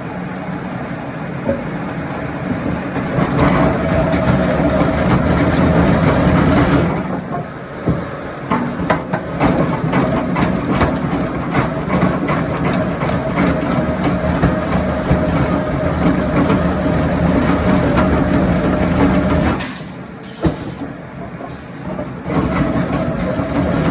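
Wood-processing machinery running with a steady drone, with scattered knocks and clatter. It gets louder about three seconds in and drops back briefly near twenty seconds in.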